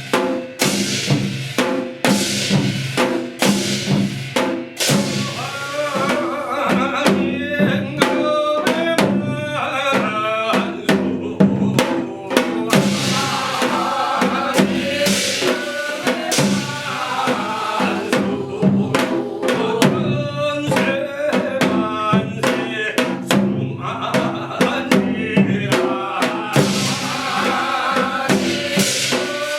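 Korean shamanic gut music of the Hwanghae-do style: drums and percussion keeping a steady, even beat, joined about six seconds in by a wavering melody that runs over the beat for most of the rest.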